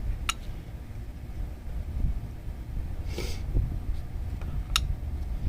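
Brake pads and caliper hardware being handled: two sharp metallic clicks about four and a half seconds apart, with a brief hiss between them, over a low steady rumble.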